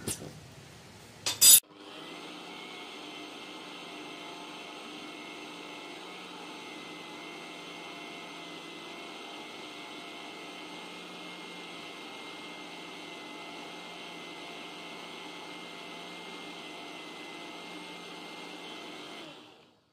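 Electric mixie (Indian mixer grinder) running steadily, grinding sugar and cocoa powder into a fine powder. It starts about two seconds in, just after a short loud knock, and stops abruptly just before the end.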